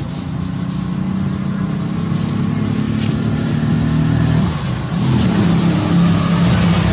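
A motor engine running off-camera, a steady low drone that grows louder, with a brief drop and shift in pitch about four and a half seconds in.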